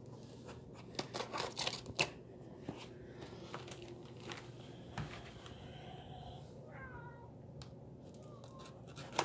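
A domestic cat gives a faint, short meow about seven seconds in, among clicks and scrapes of a cardboard shipping box being handled.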